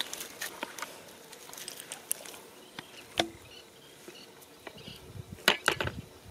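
Bare feet stepping on dry, cracked mud, with scattered small clicks and crunches. A plastic bucket with a wire handle is set down on the ground a little before the end, giving the loudest few knocks and rattles.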